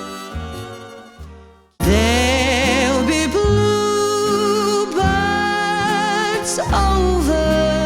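Music: one song fades and cuts off, and after a short break another begins, with a singer holding long notes with wide vibrato over a backing track.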